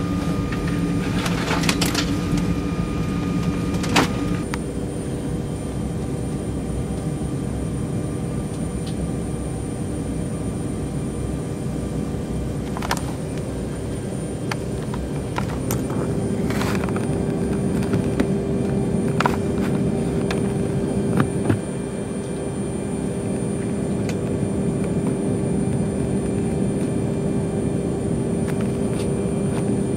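Cabin noise of a Tu-154B-2 airliner during start-up: a steady drone with several steady whining tones, a new high whine coming in about four seconds in and a lower one about halfway through. A few sharp knocks and clicks stand out, about five in all.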